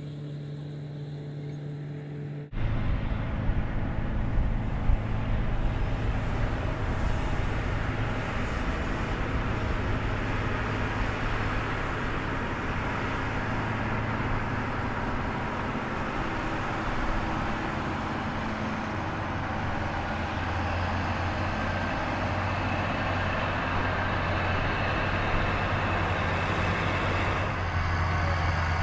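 Heavy construction machinery engines running steadily. A quieter steady hum gives way to a louder engine drone about two and a half seconds in.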